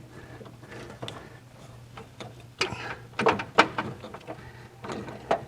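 Scattered clicks and knocks of hand work on the carburetor and its fittings as it is being disconnected, the sharpest clustered from about halfway through, over a faint steady low hum.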